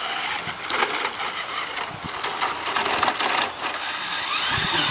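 Radio-controlled Tamiya Bullhead truck on the move: its plastic body and tyres crunch and rattle over the ground with many small clicks. A rising whine from its twin electric motors, run on an electronic speed control, comes in about three and a half seconds in.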